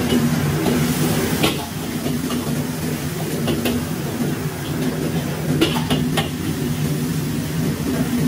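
Commercial gas wok burner running steadily under a wok of simmering, steaming sauce. A few brief knocks of cookware sound over it.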